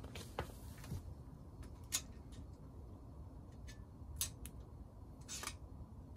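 A handful of faint, short clicks and scrapes from a steel tape measure being pulled out and held against a catalytic converter, the sharpest about two and four seconds in.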